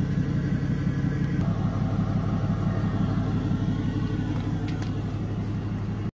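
Truck engine idling steadily, a constant low hum, with a couple of faint ticks about five seconds in.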